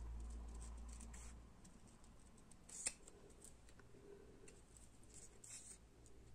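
Small scissors snipping around a stamped motif cut from paper: faint, quick snips, with one sharper click about three seconds in.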